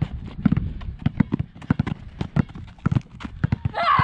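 Several basketballs being dribbled at once on a rubberised outdoor court: an uneven run of bounces, about three or four a second. A short shout near the end.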